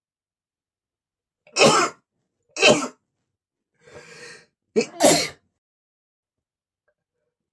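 A man sneezing three times in quick succession, powerful allergy sneezes set off by flowers, with a quieter breath between the second and third.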